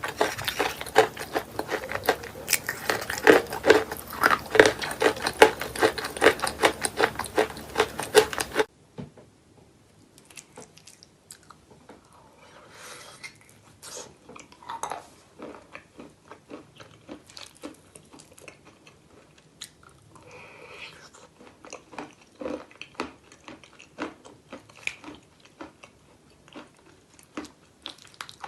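Dry chalk crunched and chewed in the mouth, from a chalk bowl filled with clay paste. It starts as dense, loud crunching, then about nine seconds in drops suddenly to quieter, sparser crunches and chewing.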